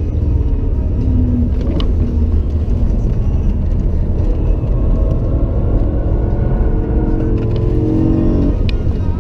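BMW M3 E92's 4.0-litre V8 pulling hard on track, heard from inside the cabin over a heavy low rumble of road noise. The engine note climbs steadily from about six seconds in, then drops off sharply near the end.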